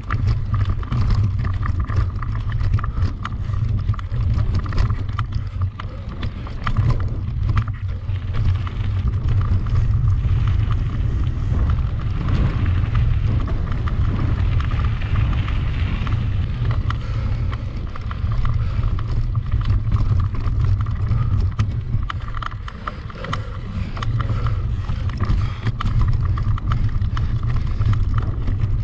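Mountain bike being ridden over a rough trail: heavy wind rumble on the microphone, with frequent rattles and knocks from the bike over bumps.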